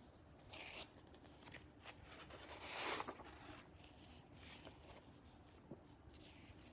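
Paper pages of a picture book being turned in a quiet room: a soft rustle about half a second in, then a louder swish of paper around three seconds in.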